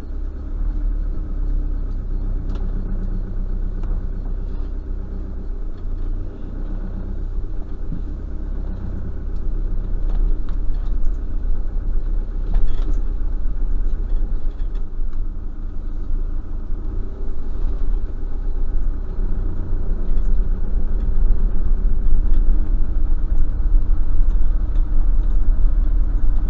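A van's engine running, with road noise heard from inside the cab as it drives off slowly. The rumble gets louder about ten seconds in.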